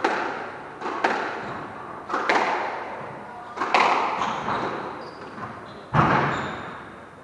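A squash rally: the ball is struck by rackets and smacks off the court walls, about five sharp hits in seven seconds, each echoing around the court. The two loudest come late, the last about six seconds in.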